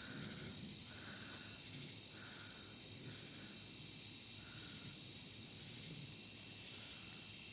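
Night insect chorus of crickets: a faint, steady high-pitched trill, with a softer pulsing call repeating about once a second.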